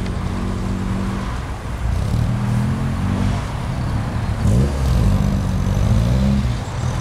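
Classic Mini's four-cylinder engine pulling away and driving past, its pitch stepping up and down, with a quick dip and rise about four and a half seconds in. Loudest as it passes near the end.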